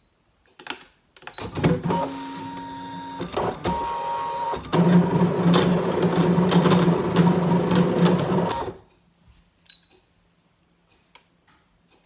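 Brother ScanNCut electronic cutting machine cutting out paper shapes: its motors whir and whine in shifting tones as the blade carriage and mat move, starting about a second in and growing louder partway through. The sound stops a few seconds before the end, leaving a faint hum and a few light clicks.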